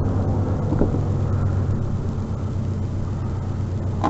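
Steady low rumble of an idling vehicle engine, with a rough noisy wash over it.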